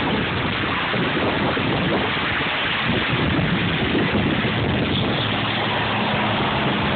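Wind buffeting the microphone, a steady rush of noise, joined about five seconds in by a low steady hum.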